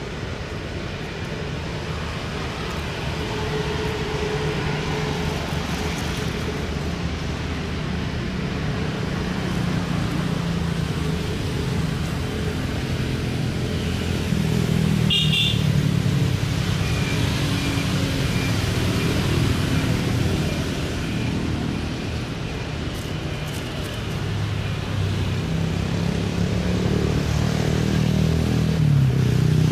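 Engines running with a steady low hum that slowly grows louder, with a short high beep about halfway through.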